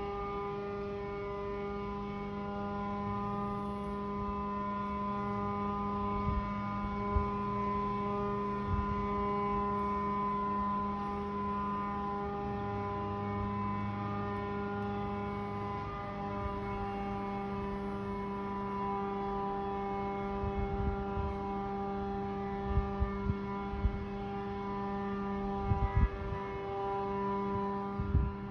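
A steady, unbroken hum made of several pitched tones at once, with a few low knocks scattered through it and more of them near the end.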